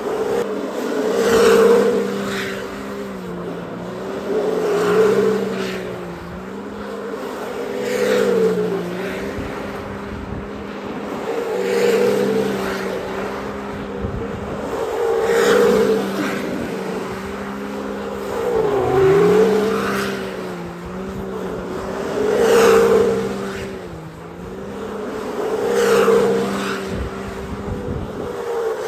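Can-Am Maverick X3 side-by-side's three-cylinder engine held at high, nearly steady revs while it spins donuts, its tires squealing and smoking on asphalt. The sound swells about every three and a half seconds as the machine comes round the circle.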